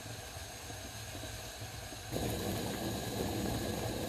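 Pot of spiced coconut milk heating on a stove, with a steady low hum under it. About two seconds in, the sound cuts to a louder, steady noise of the milk simmering at the boil.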